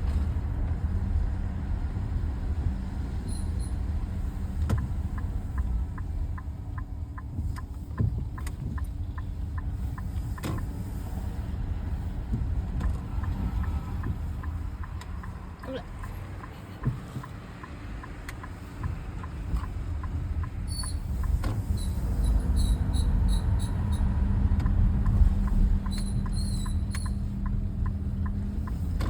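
Nissan X-Trail (T33) heard from inside the cabin while driving: a steady low road and tyre rumble, with runs of quick, regular ticking. This is the intermittent abnormal noise of unknown cause that the owner is trying to capture, which a dealer inspection found nothing wrong with.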